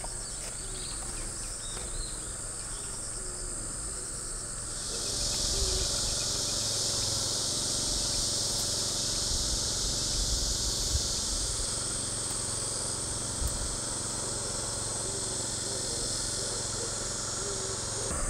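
A dense, steady chorus of insects buzzing high and shrill, growing louder about five seconds in.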